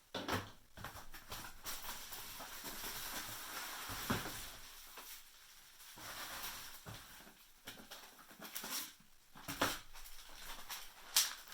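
Packaging being handled while unboxing an RC truck: rustling and crinkling of plastic and paper, with a few sharp clicks and knocks as parts are picked up and set down.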